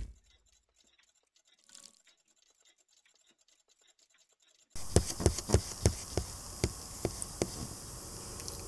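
The fading end of a logo sound effect, then near silence. About halfway through, room hiss comes up with a run of about a dozen sharp, irregular taps or clicks, two to three a second.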